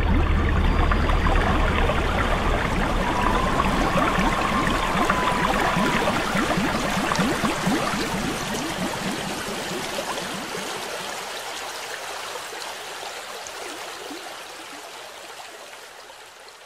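Running, trickling water sound effect that fades out steadily over the second half. A faint wavering tone sounds a few seconds in.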